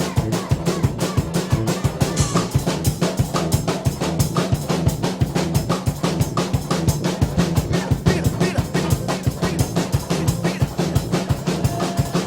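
Live brass band music in a drum-led passage: a drum kit keeps a fast, even beat over a low bass line.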